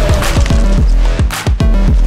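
Electronic music with a heavy bass line: deep bass notes that slide down in pitch, repeating quickly under sharp drum hits.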